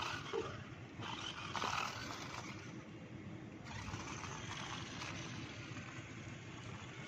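Toy RC car running: its electric motor and wheels make a steady rough noise, with a louder burst about a second and a half in.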